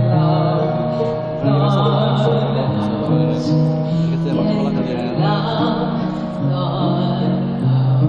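Live concert music over a stadium PA, recorded from the crowd: a slow ballad with long held chords and a woman's singing voice wavering over them twice.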